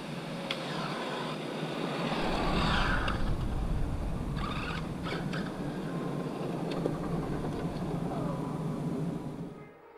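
Losi 22S electric RC drag car running on the street: a steady rush of motor and tyre noise that swells about two seconds in, with a few sharp ticks in the middle, and fades away near the end.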